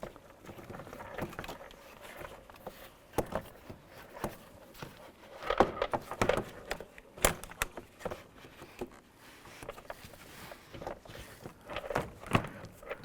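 Plastic car door trim panel being handled and positioned against the door: irregular knocks, taps and scraping, with the sharpest clacks about six to seven seconds in and again near the end.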